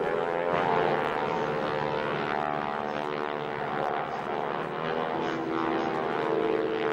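Military fast jet flying past, its engine noise a steady loud rush with a tone that shifts slowly.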